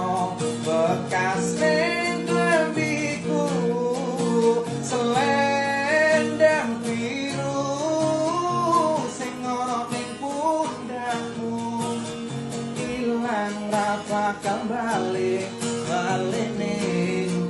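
A voice singing a slow, melodic song over acoustic guitar accompaniment.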